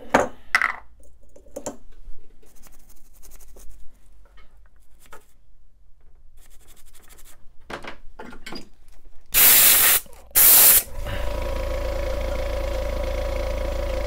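Light clicks and handling of small tools, then two short loud hissing sprays of alcohol onto a laptop RAM slot's corroded pins, about a second apart. After the sprays a steady machine hum with a clear tone sets in.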